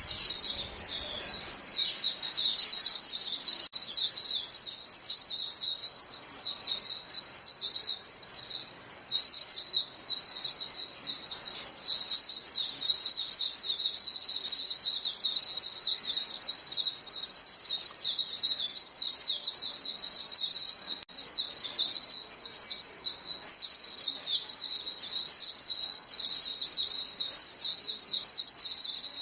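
A flock of white-eyes calling to each other: a dense, continuous stream of rapid, high chirps, with a brief lull about nine seconds in.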